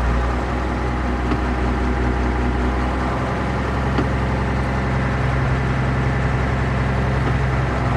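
John Deere 4030 tractor's six-cylinder diesel engine running steadily, its note shifting slightly about three seconds in. The tractor's hydraulic lift is failing to raise the arm despite a full oil level.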